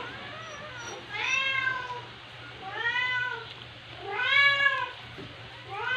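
A cat meowing: four drawn-out meows about a second and a half apart, each rising then falling in pitch.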